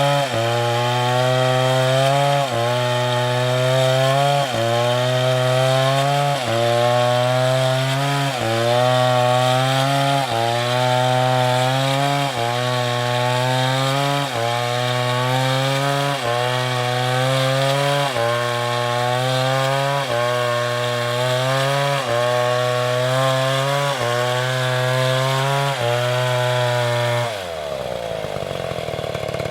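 STIHL chainsaw running at high revs under load, cutting wood, its pitch rising and dipping in a regular cycle about every two seconds. Near the end the throttle is released and the revs fall away.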